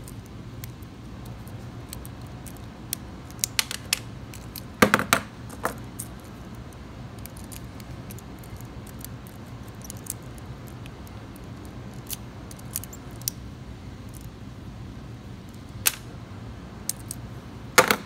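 Scattered small metallic clicks and ticks of a steel pick being worked in a Master Lock TSA combination luggage lock without a tension tool. Louder clatters come about five seconds in and again near the end, where the opened lock and its cable are set down on the workbench.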